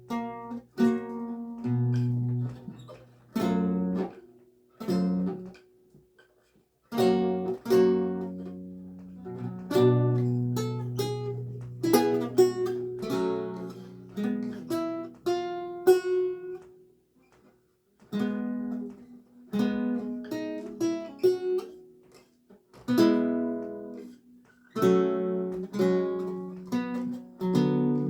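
Solo lute played slowly, plucked single notes and chords ringing and fading, with two short pauses where the sound dies away.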